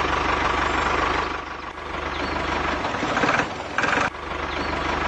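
Small motor running steadily with a fast low pulsing. About a second and a half in its sound drops and changes, and from about three seconds in it comes in short, higher bursts with brief gaps.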